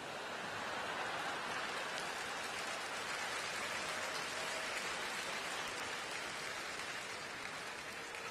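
Arena crowd applauding, swelling over the first second and easing slightly near the end.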